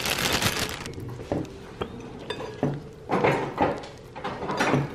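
A spatula scraping and clinking against a glass mixing bowl as chopped pecans are folded into thick brownie batter, in scattered short strokes. A noisy rustle fills the first second.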